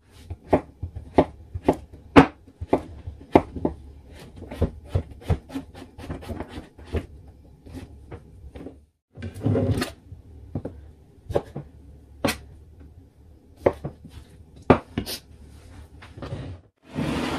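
Kitchen knife slicing courgettes on a chopping board: a run of sharp cuts at about two a second. Two brief swishing noises come in, one about halfway through and one at the end.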